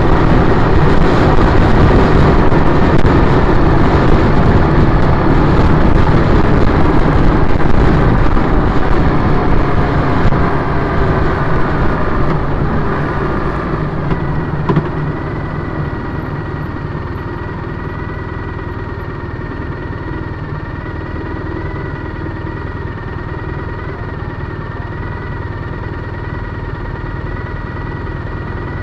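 2010 Triumph Bonneville T100's parallel-twin engine running under way with heavy wind and road noise. About halfway through, the engine note falls as the bike slows, with one brief knock. It then settles into a steady idle.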